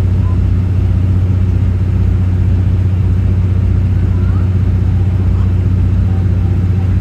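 Steady diesel drone and rumble heard inside a 12-series passenger coach as the diesel-hauled train rolls slowly along, a strong low hum that does not change.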